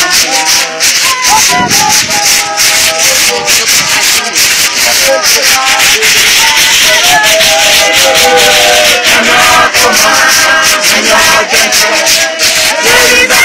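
A crowd of worshippers singing together, very loud, over a dense, steady shaking rhythm.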